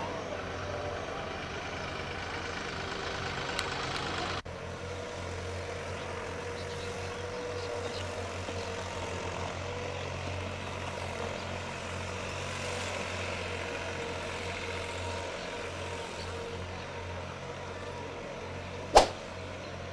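Small tractor's engine running steadily with an even drone, and one sharp knock near the end.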